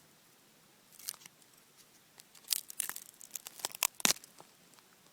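Dry birch bark being torn and peeled from a dead birch log: a short crackle about a second in, then a quick run of sharp crackling tears between about two and four seconds in.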